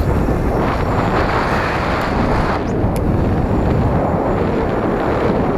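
Wind rushing over the microphone while riding an electric bike, with the bike's rolling noise underneath.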